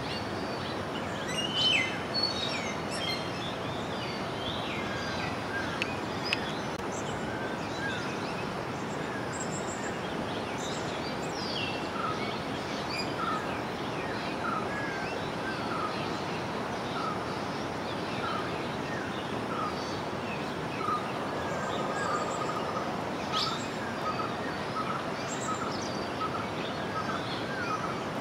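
Several small birds chirping over a steady rushing background noise. From about halfway through, one bird repeats a short call note about twice a second.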